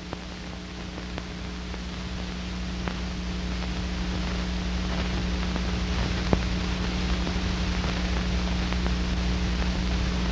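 Steady hiss and mains hum of an old black-and-white film's soundtrack, growing slowly louder, with a few faint clicks.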